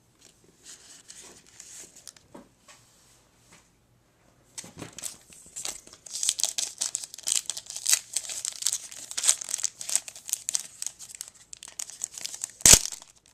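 Wrapper of a trading-card pack being crinkled and torn open. It starts with faint rustling, turns to dense, loud crinkling about four and a half seconds in, and has one sharp crackle near the end.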